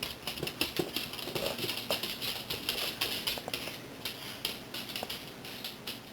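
A dog's claws clicking and scratching on a hard surface in quick, irregular strokes.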